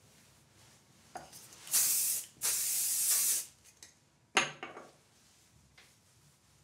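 An aerosol hairspray can sprayed in two hissing bursts, the second a little longer, followed a second later by a sharp knock, like the can set down on the counter.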